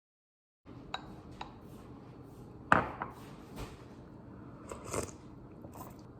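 Kitchen clatter: dishes and utensils knocking and clinking a few times, loudest about three seconds in.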